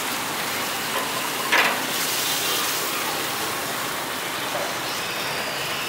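Meat skewers sizzling on a charcoal grill, a steady hiss, with a brief clack about one and a half seconds in.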